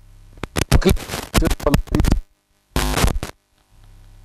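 A man's speaking voice broken into short garbled fragments that cut out abruptly to silence between them, with a low hum under the quieter stretches.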